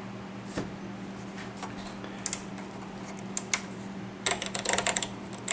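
Handling noise while unpacking a radio: a few scattered clicks and knocks, then a dense run of rustling and clicking from about four seconds in, over a steady low hum.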